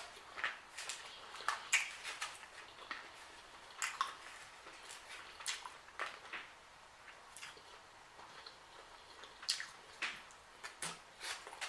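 Close-miked chewing and lip-smacking while eating shrimp and ramen noodles: short wet smacks and clicks, about a dozen, at irregular intervals.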